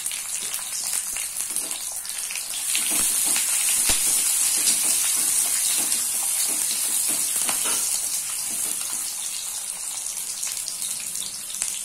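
Chopped shallots sizzling in hot oil with mustard seeds and dals in an iron kadai, the tempering (thalippu) for a chutney. A steady hiss with scattered small crackles, growing louder about three seconds in.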